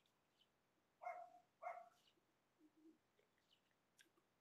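Near silence, broken about a second in by two short animal calls a little over half a second apart.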